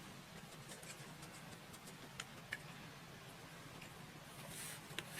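Faint, scattered light clicks over a steady low background hum, with a brief soft hiss near the end.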